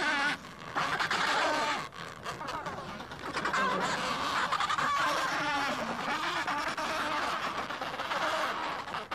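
Adélie penguin colony calling: a dense chorus of many overlapping, wavering squawks.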